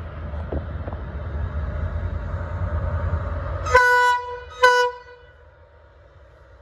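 Low rumble of a train running, then two short toots of a train horn a little under a second apart, each one steady note.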